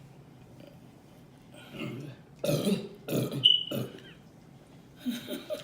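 A woman burping: a quick string of about four short burps, then one more near the end.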